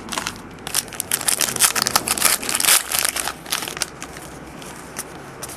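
Foil trading-card pack wrapper crinkling as it is handled and torn open, a dense spell of crackles in the middle, thinning out near the end.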